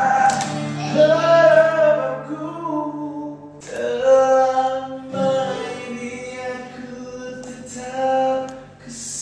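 Singing with music: a voice holds long, drawn-out notes of a slow melody over a steady low accompaniment, with a brief break about three and a half seconds in.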